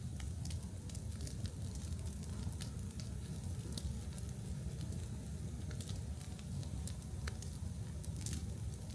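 Large open fire burning, with frequent small sharp crackles and pops scattered irregularly over a steady low rumble.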